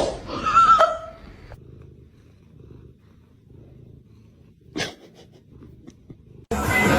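A domestic cat makes a short call at the start, then purrs softly and steadily for several seconds. Loud music with guitar cuts in near the end.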